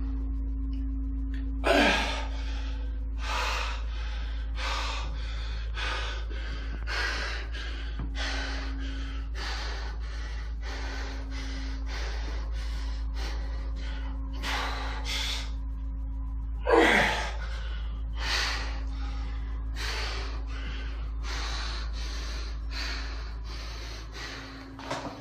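A man breathing hard and forcefully through a heavy set of dumbbell pull-overs, one to two sharp breaths a second, getting quicker near the end, with two louder gasps, one about two seconds in and one about two-thirds through. A steady low hum runs underneath.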